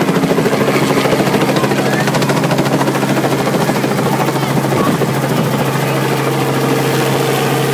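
Light two-bladed helicopter flying low overhead, its rotor chopping rapidly over a steady engine hum.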